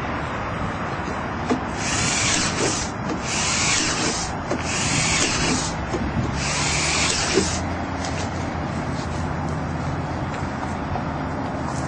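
Cordless drill run in four short bursts of about a second each, driving fasteners at the base of a fence post in its ground-anchor socket. A steady low rumble runs underneath and carries on after the drilling stops.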